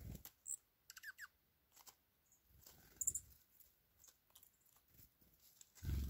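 Dark-eyed juncos giving a few short, high call notes, with two quick lower chirps about a second in, over faint scattered clicks. A low dull thump at the start and another near the end are the loudest sounds.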